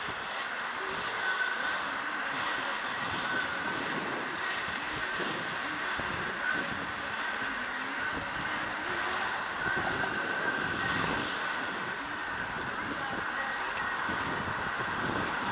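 Inline skate wheels of many skaters rolling over asphalt: a steady rolling hiss and rumble.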